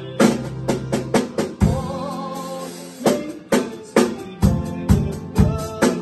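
Live band music: a Pearl drum kit playing a beat of bass drum and snare hits about every half second over held electronic keyboard chords.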